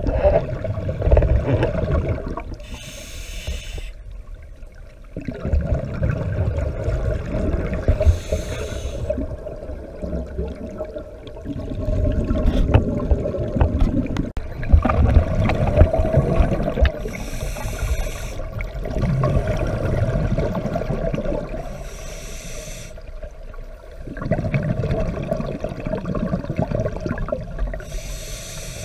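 A scuba diver's regulator breathing, heard underwater: a short hissing inhalation about every five seconds, alternating with long, rumbling, gurgling bursts of exhaled bubbles.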